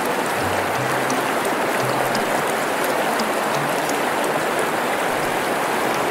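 Steady rush of river water, with background music and its low notes faintly underneath.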